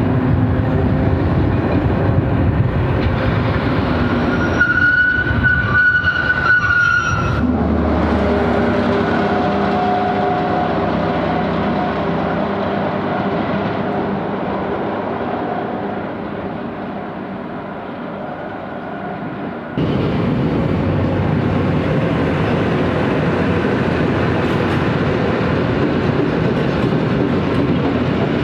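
Diesel-hauled trains running past on the track, a steady rumble of wheels on rails with some rhythmic clatter. A high tone sounds for about two seconds around five seconds in, and the sound changes abruptly twice, at about seven and twenty seconds in.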